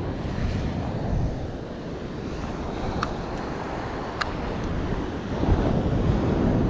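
Wind buffeting the microphone over a steady wash of surf, with two faint short ticks around the middle and a brief low thump about five and a half seconds in.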